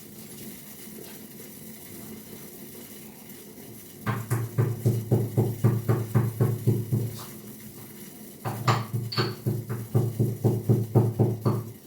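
Cloves being pounded to crush them: two bouts of rapid, heavy strokes, about four to five a second, starting about four seconds in and again after a short pause.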